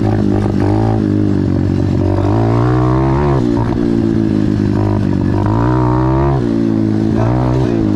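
Pit bike's single-cylinder four-stroke engine under riding, revving up and falling back several times as the throttle is opened and closed.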